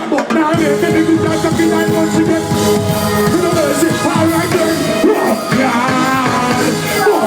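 Live reggae music: a band playing with a singer's voice over it.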